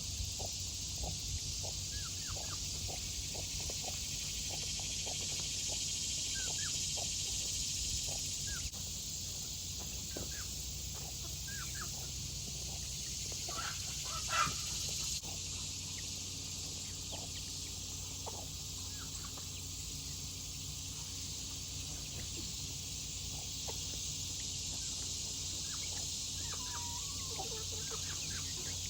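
Chickens clucking in short, scattered calls, with one louder call about fourteen seconds in, over a steady high hiss.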